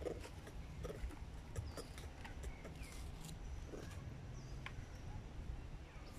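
Outdoor forest ambience: scattered short, high chirps and clicks with a few brief falling notes over a low steady rumble, plus a few soft low calls.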